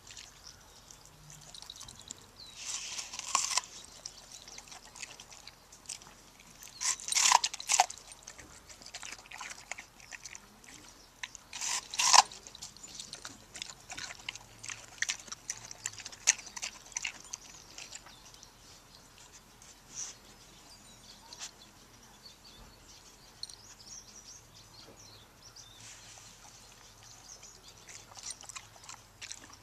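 Shepherd puppy chewing and crunching watermelon rind: irregular crunches and clicks, with louder bites about three, seven and twelve seconds in.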